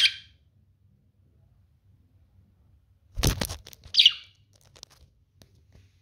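A budgerigar gives two short, high chirps, one at the start and one about four seconds in. A brief rustling burst comes just before the second chirp.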